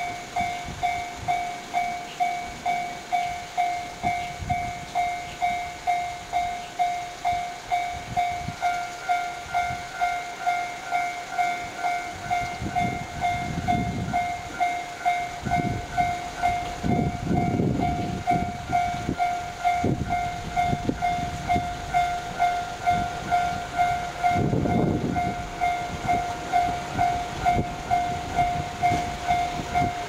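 Japanese electronic level-crossing warning bells ringing in a steady, even rhythm of dings. A second, higher-pitched crossing bell joins about nine seconds in and rings on and off after that. Low rumbles swell midway and again near the end.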